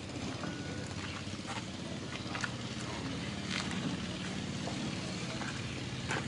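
A motor engine running steadily, with scattered faint clicks and taps over it.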